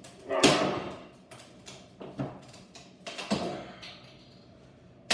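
Wooden crate slats being pried off with a hammer: a loud crack of wood about half a second in, a few light knocks, then another crack as a slat pulls loose around three seconds in.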